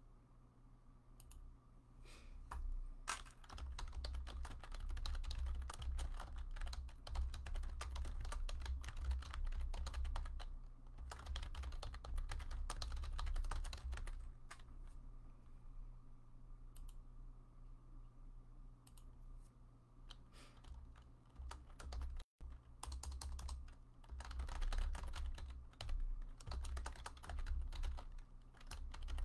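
Typing on a computer keyboard: runs of rapid key clicks with short pauses between them, heaviest for several seconds early on and again near the end.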